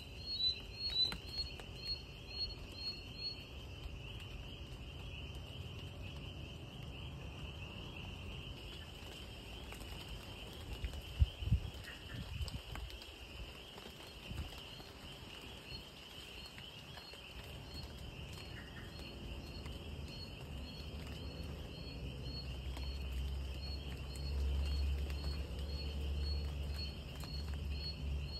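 Night insect chorus: a steady high trill, with a short high chirp repeated about twice a second in the first few seconds and again, more slowly, through the second half. A few sharp knocks about eleven seconds in, and a low rumble in the last few seconds.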